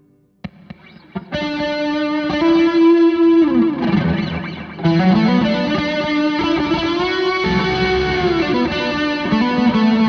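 Electric guitar played through a chain of effects pedals with a distorted tone. After a click and a near-quiet first second, it holds sustained notes, with string bends sliding the pitch up and down several times.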